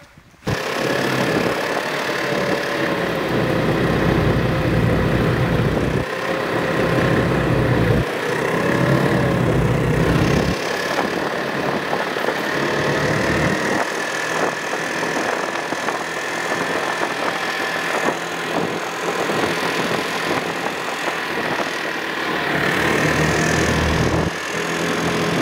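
Snowmobile engine running under way, a steady drone with a whine over it; the low rumble drops off and comes back a few times as the throttle changes.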